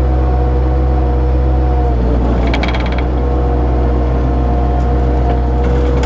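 Bobcat skid steer engine running hard with a steady whine from the hydraulics driving a converted bush hog mower. About two seconds in, the pitch dips under load and a rattling clatter of brush being cut lasts about a second; a shorter clatter comes near the end.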